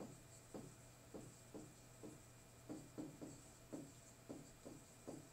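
A pen or stylus writing numbers by hand: about a dozen faint, short taps and scratches, roughly two a second.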